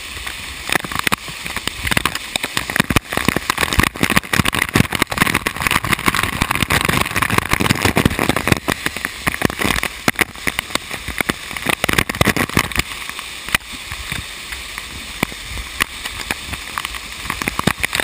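Waterfall water pouring and splashing right against the camera, a continuous rushing noise broken by many irregular sharp taps of drops and spray hitting it.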